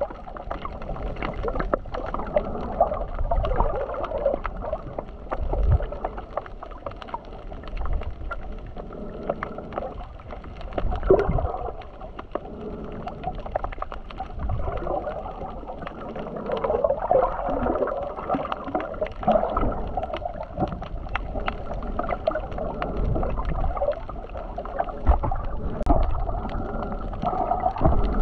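Muffled sea water heard underwater: continuous gurgling and bubbling with scattered small clicks.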